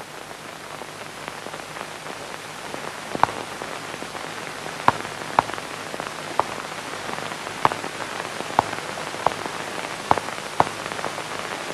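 Chalk writing on a blackboard: a scattered series of sharp taps and clicks as an equation is written, over a steady hiss.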